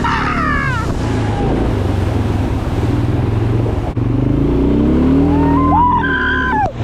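ATV engine running under way over rough ground, its pitch rising as it revs up about five seconds in. Short high-pitched bending tones come right at the start and again near the end.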